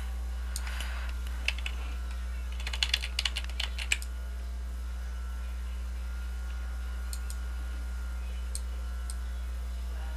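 Light clicks from a computer keyboard and mouse while drawing in a paint program: a few single clicks, a quick run of them about three seconds in, then scattered clicks later, over a steady low hum.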